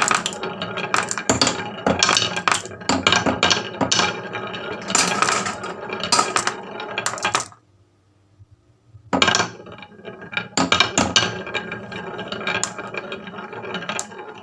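Marbles rolling and clacking down a HABA wooden marble run, a dense rattle of rapid clicks. About halfway through the clatter stops for over a second, then starts again with a sharp clack.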